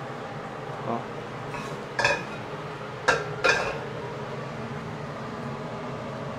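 Metal cookware clanking on a gas hob: a soft knock, then three sharper metallic clanks with a brief ringing note, the last two close together, over a steady low hum.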